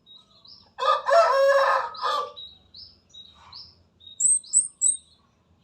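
Comade gunung trotol singing: short, thin, whistled notes that slide upward, repeated, then three higher, quick chirps near the end. A rooster crows about a second in, the loudest sound, over the song.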